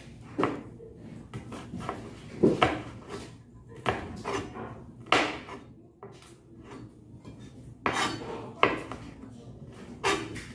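Kitchen knife chopping red chili peppers on a cutting board: irregular sharp knocks of the blade on the board, some much louder than others.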